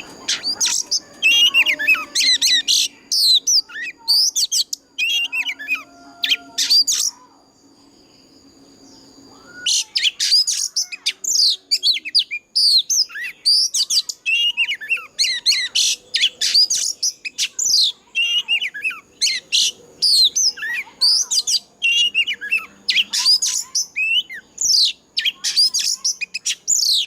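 Oriental magpie-robin (a mature wild bird) singing loud, rapid runs of varied high whistled notes, with a pause of a few seconds about seven seconds in before the song starts again.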